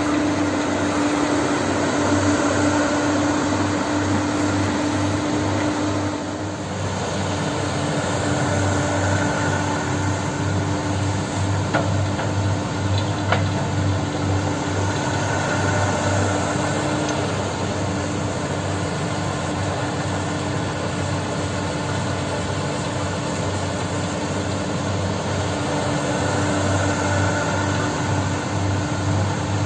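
Hyundai hydraulic excavator's diesel engine running steadily as it digs and swings loads, a continuous drone that dips briefly about six seconds in. A few faint knocks of stone come around the middle.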